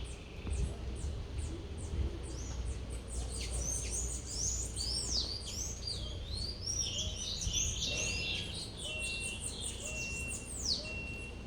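Several birds singing and chirping together, with many quick chirps and sweeping high notes overlapping. From about eight seconds in, one short steady whistled note repeats about once a second. A low rumble runs underneath.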